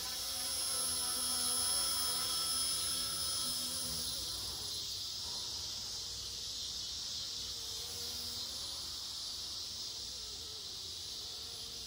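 Blade mCP X BL2 micro RC helicopter flying, its brushless motor and rotor giving a high, buzzing whine that wavers in pitch with the throttle. It is strongest in the first few seconds and fades after about four seconds.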